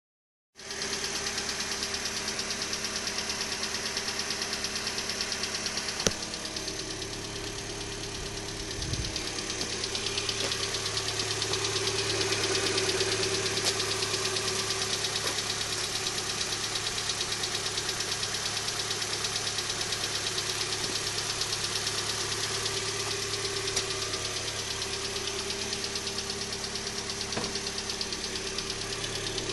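2012 Hyundai Elantra's four-cylinder engine idling steadily with a rapid, even ticking over the engine note, the ticking noise the owner wants fixed.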